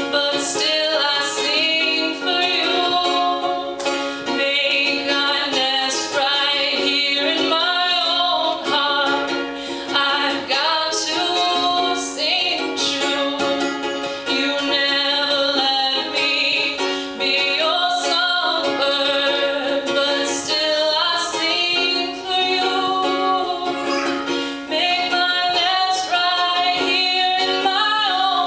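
A woman singing with her own strummed ukulele accompaniment.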